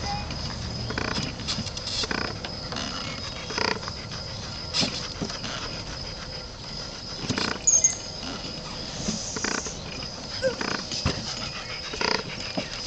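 Shorthorn heifer scratching an itch: irregular knocks and rubbing scrapes, some sharp and loud, scattered unevenly.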